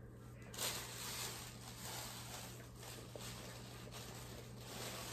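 Faint handling of a small plastic wellness-shot bottle: a short sound about half a second in as it is opened, then the shot being drunk, over a steady hiss.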